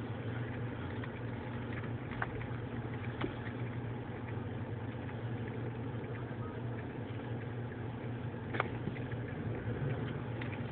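Car engine running with a steady low hum, heard from inside the cabin, with a few short clicks about two, three and eight and a half seconds in.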